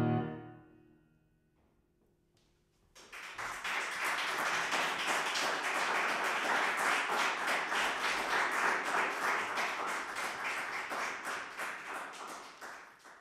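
Final chord of a grand piano ringing out and dying away, then a short silence before an audience starts applauding about three seconds in; the clapping holds steady and fades out near the end.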